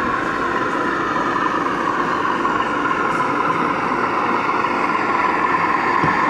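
O gauge model GWR streamlined diesel railcar running along the track, giving a steady mechanical drone with a continuous hum.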